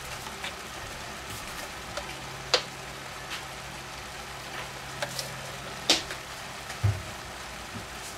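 Hot fat sizzling in pans on an electric hob, with a few sharp pops scattered through and a duller knock about seven seconds in, over a low steady hum.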